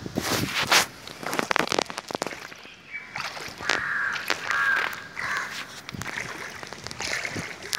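Crows cawing several times, mostly in the middle of the stretch, after a run of sharp clicks and knocks in the first two seconds.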